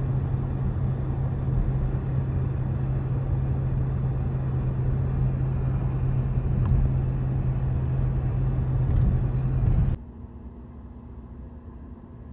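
A car running: a steady low hum under an even rushing noise, which cuts off abruptly about ten seconds in and leaves a much quieter hum.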